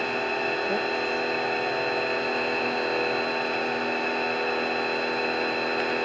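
Sun Joe pressure washer running steadily, its motor holding an even, unchanging whine.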